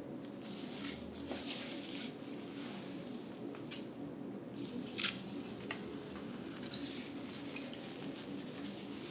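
Handling noise: soft rustling over a steady low hum, with three light sharp taps or clicks, the loudest about five seconds in.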